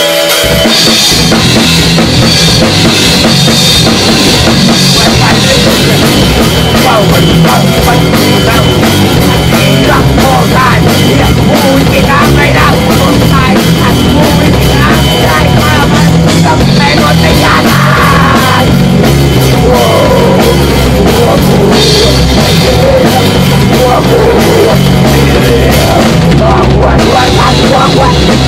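Loud rock music: a full band with a drum kit keeping a steady beat.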